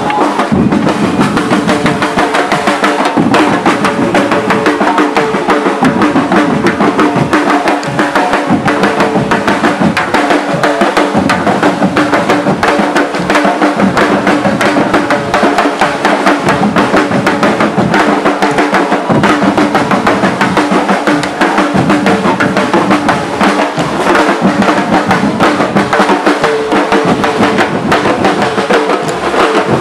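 Loud, continuous percussion: drums and banging in a steady rhythm, with held tones running beneath.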